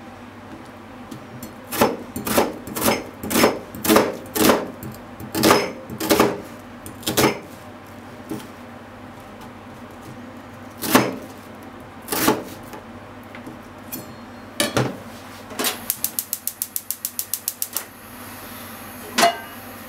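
Kitchen knife cutting an onion on a plastic cutting board: a string of about a dozen knife strikes against the board, then a few single cuts, then a quick even run of rapid chopping near the end.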